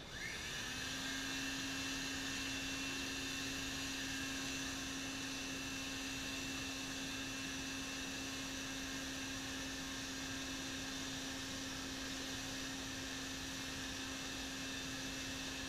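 Electric air blower for a backyard forge switching on, spinning up to speed within the first second, then running steadily with a low hum, a higher whine and a rush of air.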